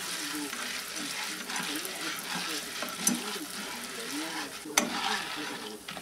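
Food sizzling in a pan as it is stirred, a steady hiss, with one sharp click near the end.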